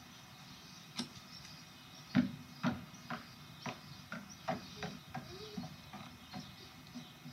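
Footsteps knocking on wooden boards: a single knock about a second in, then about a dozen uneven steps at roughly two a second, the first ones loudest.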